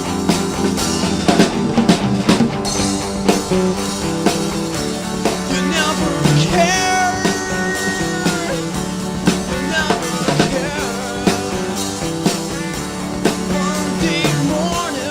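Rock band song playing steadily, with a drum kit and other instruments and a voice singing over them.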